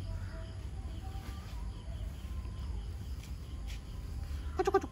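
Quiet outdoor background with a steady low rumble and faint bird calls and insects. A brief pitched call sounds near the end.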